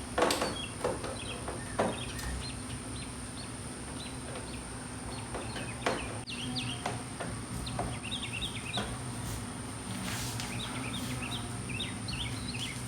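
Small birds chirping in short repeated notes, busier near the end, with a few scattered light knocks over a steady low hum.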